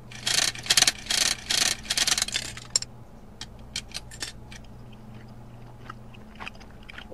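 Cartoon sound effect of a gumball machine's crank being turned: dense crunching rattle for about three seconds, then scattered sharp clicks and crunches of chewing.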